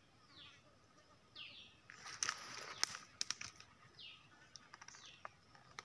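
A bird calling faintly, a short high note that sweeps downward, repeated about once a second, with a brief rustle about two seconds in and a few light clicks.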